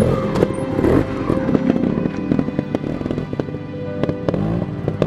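Trial motorcycle engines popping and crackling at low revs as the bikes pick their way over rocks, with music playing underneath.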